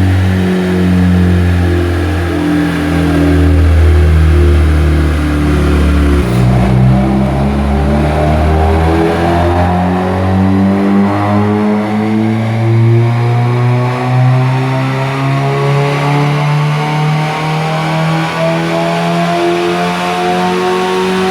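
Hyundai HB20 1.6 four-cylinder engine under full throttle on a chassis dynamometer. The revs climb, drop at a gear change about six seconds in, then rise steadily through a long pull. It is a baseline run on the original engine map, through an aftermarket exhaust with the second catalytic converter removed and a 2.5-inch pipe.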